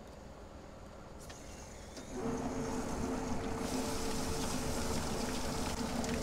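Drum-style quail plucker starting up about two seconds in: its motor hums steadily while the spinning drum tumbles the scalded quail against its rubber fingers. From about three and a half seconds, a hose nozzle sprays water into the drum with a steady hiss.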